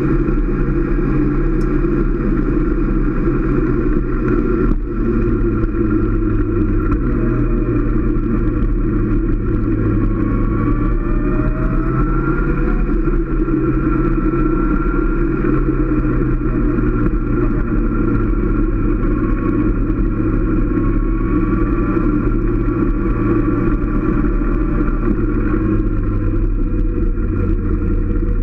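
Motorcycle engine running steadily while riding at road speed, its note shifting a couple of times, with rushing noise over the microphone.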